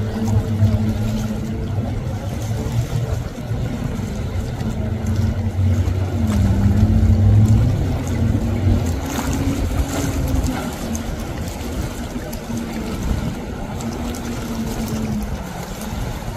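Jet ski engine running steadily, its pitch rising and dipping slightly as the rider works the throttle.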